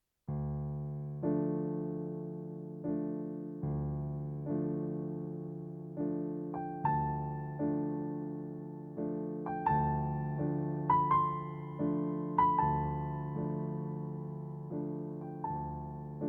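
Slow, soft piano music: sustained chords struck about once a second, each fading away, with a simple higher melody over them in the middle.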